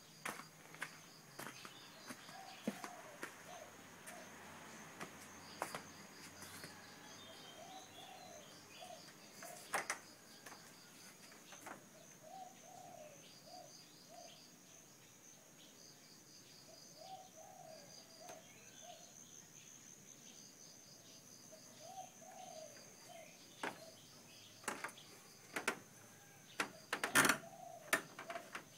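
Outdoor ambience: a dove cooing in short phrases of a few notes every four to five seconds over a steady, high, pulsing insect drone. Scattered sharp clicks and knocks come through, the loudest a little before the end.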